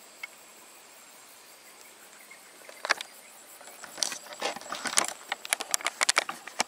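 Outdoor ambience: a faint steady hiss with a thin high tone, then from about three seconds in a run of irregular sharp clicks and crackles that grows denser toward the end.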